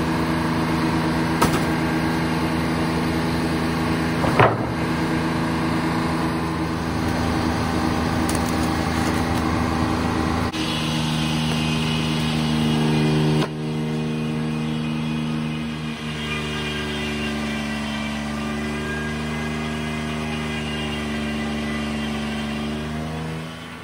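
Three-cylinder Detroit Diesel engine powering a sawmill, running steadily throughout. Its tone shifts twice partway through. A single sharp knock comes about four and a half seconds in.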